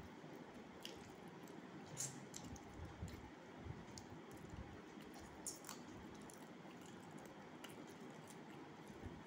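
Faint eating sounds: a person chewing food, with scattered soft, wet mouth clicks at irregular intervals.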